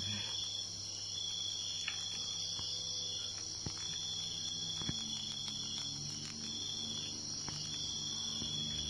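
Steady high-pitched insect chirring, with a few faint scattered clicks.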